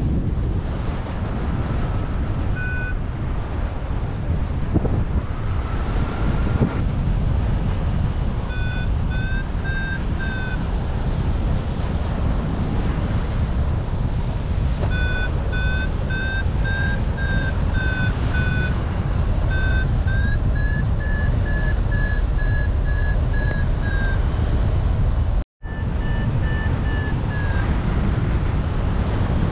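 Wind rushing over the camera microphone in paraglider flight, with a variometer beeping in several runs of quick beeps that step up in pitch, its signal that the glider is climbing in lift. Near the end the sound drops out for an instant.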